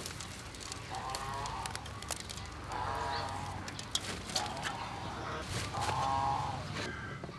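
Farm animals calling in the background: three drawn-out calls, about a second in, about three seconds in and near the end. Leafy greens rustle and crackle as they are handled.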